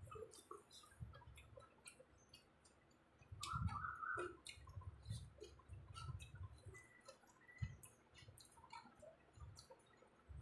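Quiet eating sounds: many scattered small mouth clicks and soft chewing from people eating biryani, a little louder about four seconds in.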